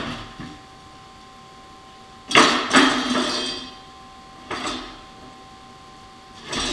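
Heavy metal-on-metal hammer blows, each with a short ringing tail: a sharp one at the start, two loud ones close together a little past two seconds in, another about four and a half seconds in, and more starting near the end. A faint steady whine sits underneath.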